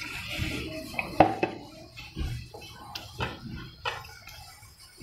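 A metal spoon stirs a thick flour batter in an enamel bowl, scraping and clinking against its sides in irregular knocks. Water pours into the bowl briefly at the start.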